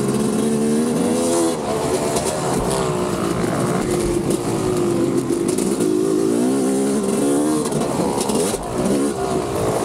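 Motocross dirt bike engines running on the track, revving up and dropping off again and again, with more than one bike heard at once.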